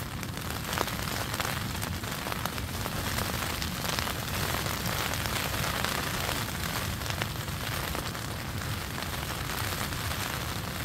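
Steady rain drumming on the tent fabric, with a few light clicks as kindling catches in the small wood stove.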